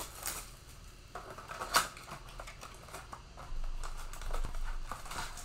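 A cardboard Panini Mosaic football blaster box being torn open by hand: rustling and tearing, with a couple of sharp clicks early and denser rustling in the second half.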